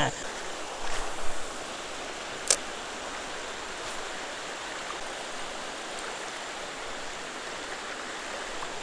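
Shallow river flowing over a rocky bed: a steady rush of water, with one sharp click about two and a half seconds in.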